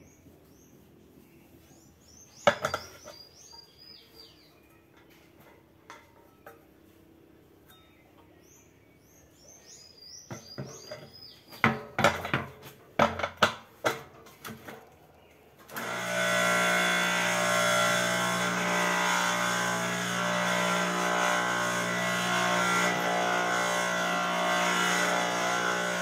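Several knocks as the stainless steel jar is set onto the industrial blender's base, then about sixteen seconds in the blender's electric motor starts and runs steadily at full speed with the jar empty, turning the freshly rebuilt hex drive coupling.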